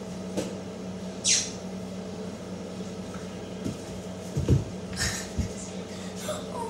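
A child's feet and hands thumping onto a hard floor as she lands a cartwheel, the loudest thump about four and a half seconds in and a softer one just after. A brief high, falling squeak about a second in, over a steady low hum.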